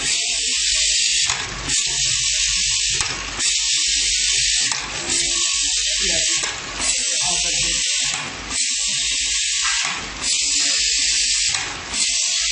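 Rotary vial filling and capping machine running: a loud, steady hiss that drops out briefly about every one and a half seconds, in a regular machine cycle.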